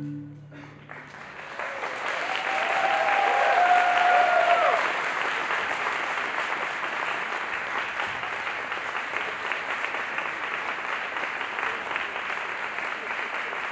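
Audience applause breaks out as the plucked-string backing music stops, just after the start. It swells to its loudest about four seconds in, with a few gliding whoops of cheering over it, then carries on as steady clapping.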